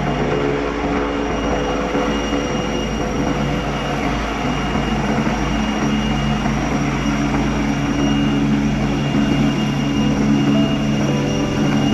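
Rescue helicopter hovering, its rotor and turbine engine running steadily with a thin high whine over the rotor noise.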